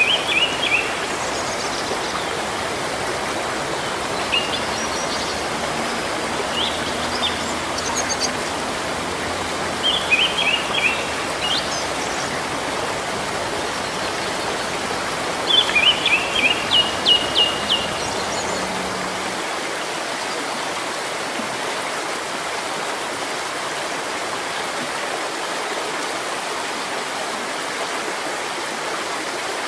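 Steady rain falling on leaves. A bird calls over it several times in short bursts of rapid chirps, the last and longest burst about halfway through.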